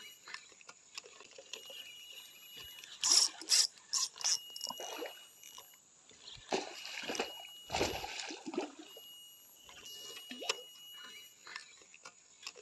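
Small creek trickling, with clusters of short, louder noises: several quick ones about three to four seconds in, and a longer stretch around seven to eight seconds.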